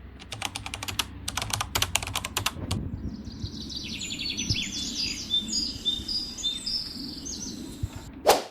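A quick run of sharp clicks for the first three seconds, then a small bird chirping over and over in short falling notes over a low background rumble, with one sharp click near the end.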